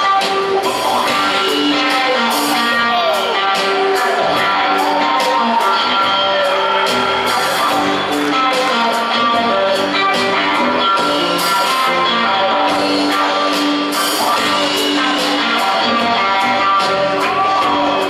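Live band music from an electric guitar, upright bass and drum kit, an instrumental passage with the drums keeping a steady beat under the guitar lines.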